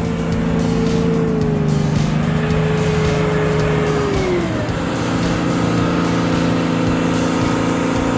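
Engine running steadily under load; its pitch drops about four seconds in, then holds steady at the lower speed.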